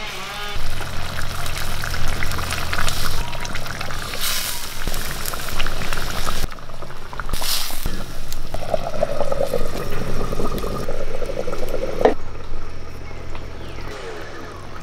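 Fish curry bubbling and simmering in an earthenware pot over a wood fire, a wet liquid sound with two louder hissing bursts partway through.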